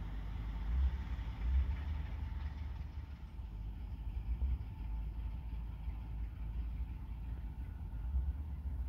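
Distant Sulzer-engined 060-DA (LDE2100) diesel-electric locomotive idling: a low, uneven rumble with a faint steady hum above it.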